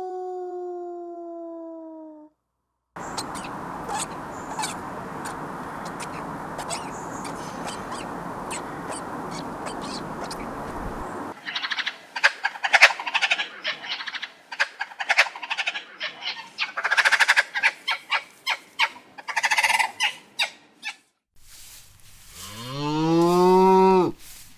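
A run of separate farm-animal clips: a long, slightly falling call ends about two seconds in, then a stretch of steady noise, then a quick run of many short, sharp calls. Near the end a cow moos once in one long call that rises and falls.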